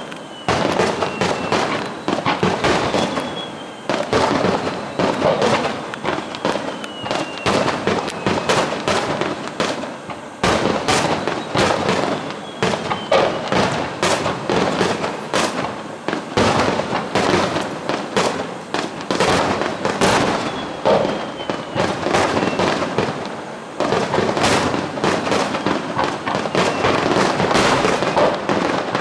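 Fireworks display: a continuous barrage of shell bursts and crackling, with a faint falling whistle heard several times.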